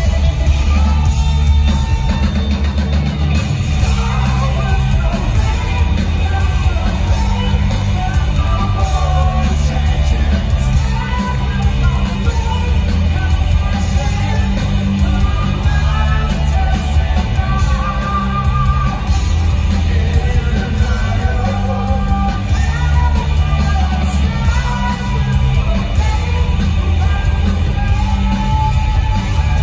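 Rock power trio of electric guitar, bass and drums playing live through a theatre PA, heard from the audience, with a heavy low end.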